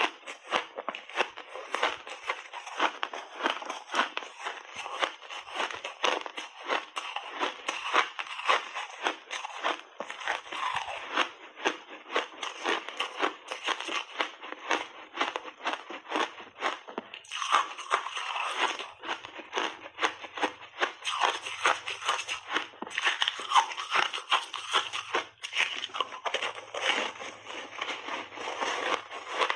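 Close-miked crunching and crackling of refrozen ice balls being bitten and chewed, a dense, rapid run of crunches throughout.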